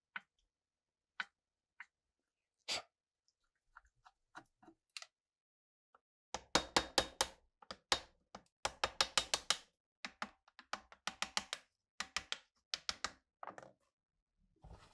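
Hammer blows driving a wooden block against the rusted steel barrel shroud of a DP-27 machine gun clamped in a vise: quick runs of sharp knocks, several a second, starting about six seconds in after a few scattered clicks and taps.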